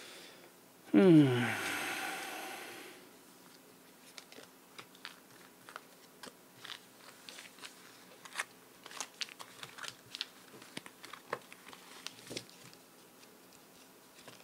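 Tarot cards being shuffled and drawn on a table: light, irregular clicks and snaps of the card stock, several a second. About a second in there is a louder, short sound falling in pitch.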